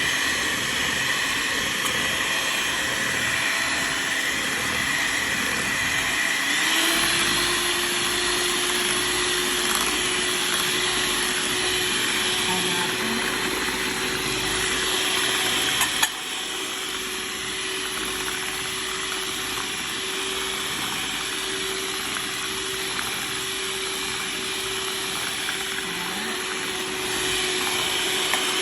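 Electric kitchen mixer running steadily, beating cake batter. A steady hum comes in about six seconds in, and after a click about halfway through it runs a little quieter.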